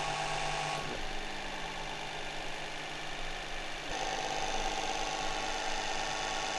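Hydraulic press running with a steady mechanical hum while it forces a chisel into a metal block. The hum's tone changes abruptly about a second in and again near four seconds in.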